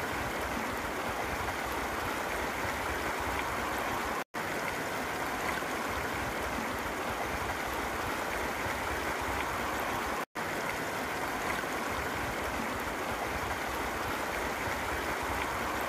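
Shallow rocky creek rushing over and around rocks, a steady splashing rush of water where the fast flow breaks into a hydraulic jump. The sound drops out for an instant twice.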